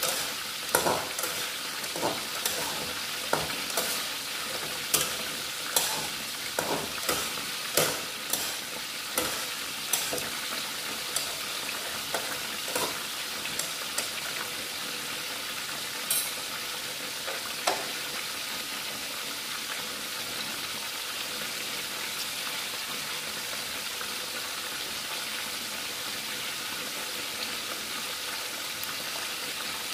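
Hot oil sizzling around a whole salted tilapia frying in a pan. Sharp spattering pops come about once a second through the first half, then it settles to a steady, even sizzle.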